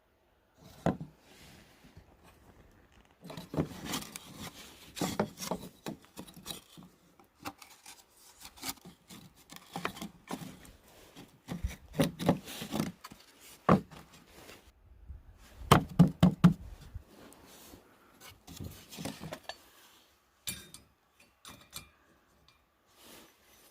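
Irregular knocks, clicks and rubbing of camping gear being handled and set out, the loudest cluster of knocks coming about two-thirds of the way through.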